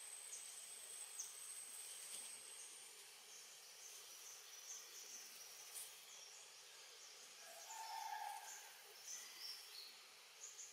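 Faint forest ambience: a thin, steady high insect whine for the first few seconds, scattered short high bird chirps, and one short lower call about eight seconds in.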